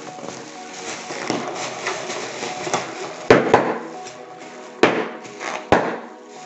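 Plastic packaging crinkling and rustling as items are unpacked, then four sharp knocks of things being handled or set down, the loudest just past the middle, over background music.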